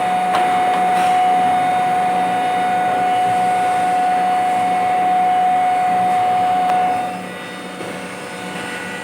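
Plastic injection moulding machine running: a loud, steady mechanical noise with a high, steady whine that stops about seven seconds in, when the noise drops.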